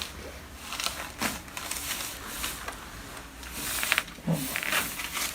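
Joint cracks from a chiropractic spinal adjustment: a sharp pop about a second in and a cluster of pops about four seconds in, followed by a short vocal sound from the person being adjusted.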